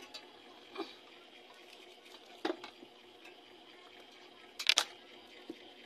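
Quiet handling noise: a few short knocks and scrapes from hands at work, the loudest a quick double scrape about four and a half seconds in.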